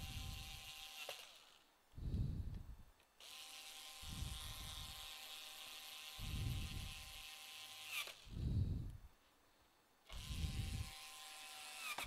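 Small cordless electric screwdriver running in three spells, a steady whir that winds down at the end of each run, driving the laptop's bottom-cover screws. Low dull rumbles come about every two seconds between and over the runs.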